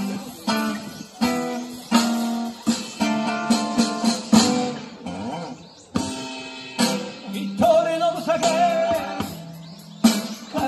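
Acoustic guitar playing a slow blues intro: picked and strummed chords, one after another. A little past the middle a single note is held and bent, wavering.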